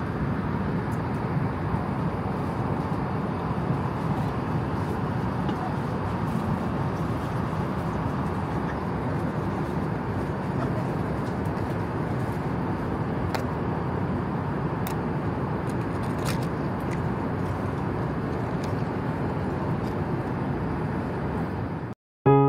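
Steady in-flight cabin noise of an Airbus A380 airliner: a constant rush of engine and airflow, with a few faint clicks in the middle. It cuts off abruptly near the end.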